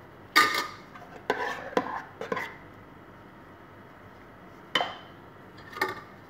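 Metal spoon clinking against a glass baking dish as béchamel sauce is spread over pasta. There are four quick clinks in the first two and a half seconds, then two more near the end.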